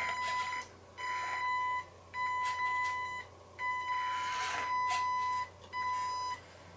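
Electronic warning beeper sounding a steady single-pitch tone in on-off pulses of uneven length, about six in a row, with a few short whirring bursts from the mini RC crawler's small brushed motor between them. The beeping is taken for a low-battery alarm: the crawler's battery pack is nearly flat.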